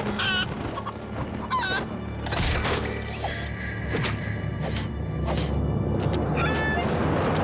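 Cartoon soundtrack: dramatic background music over a low rumble, with several short whooshes and a few brief warbling, chirp-like calls.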